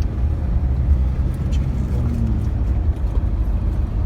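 Steady low road-and-engine rumble inside the cabin of a moving Toyota Fortuner SUV.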